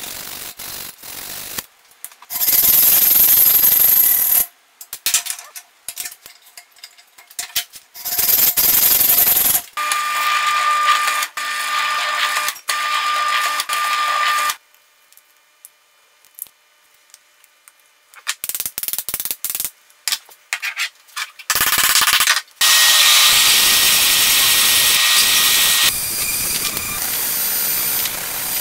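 A string of workshop sounds in short cut-together pieces: bursts of loud power-tool noise, a bench drill press motor running steadily for a few seconds, scattered clicks and knocks of hand work, and a steady loud rush from a little after the middle.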